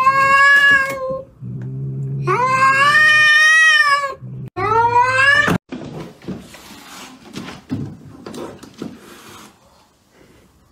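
A cat yowling in three long, drawn-out cries, the last rising in pitch, with a low growl between them. After about five and a half seconds, softer scuffling sounds.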